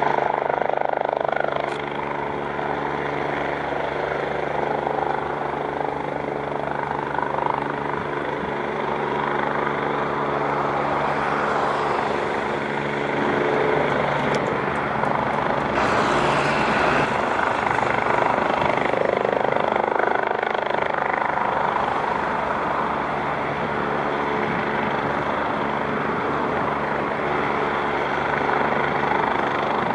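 Fire-rescue helicopter hovering, a steady rotor and turbine drone with an even buzz of blade tones that hardly changes in level.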